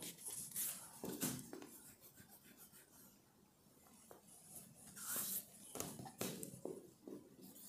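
Faint writing strokes: short scratchy sounds of a pen, marker or chalk moving across a surface, in two spells with a pause of about three seconds between them.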